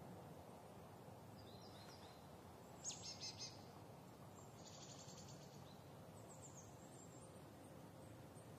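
Faint outdoor background hum with small birds chirping now and then, loudest as a quick run of about four chirps about three seconds in.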